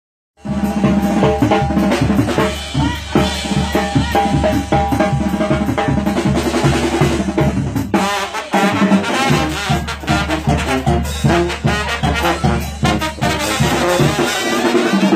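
Tamborazo band playing live: trumpets and trombones carrying the tune over the tambora bass drum's steady driving beat. The music starts about half a second in.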